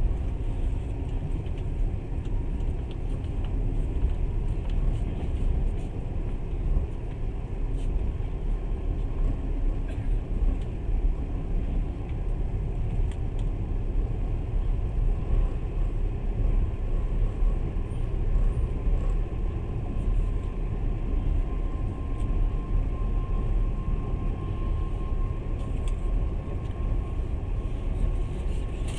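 Passenger train running along the line: a steady low rumble of wheels on rails and the moving carriage, heard through the carriage window, with a faint thin whine in the second half.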